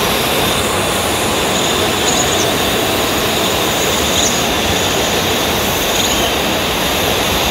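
Quadcopter camera drone hovering low nearby: a steady rushing hum with a faint whine that holds level, with no change in the propeller sound.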